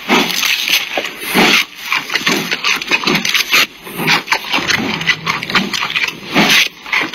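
Giant panda biting and chewing bamboo stalks: a run of irregular crunches and cracks of splitting bamboo.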